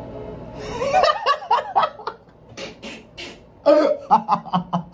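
A man laughing hard in breathy, choppy bursts. There is one fit about a second in, a few hissing breaths in the middle, and a second fit near the end.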